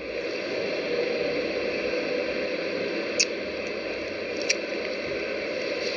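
Steady hissing noise with two short clicks, one about three seconds in and another a little over a second later.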